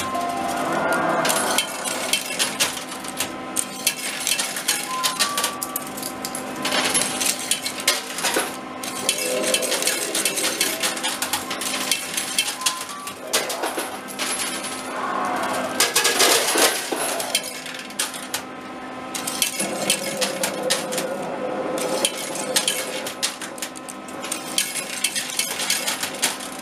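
Metal coins clinking and clattering in a coin pusher arcade machine as coins drop onto the sliding trays: many short clinks throughout, over a few steady background tones.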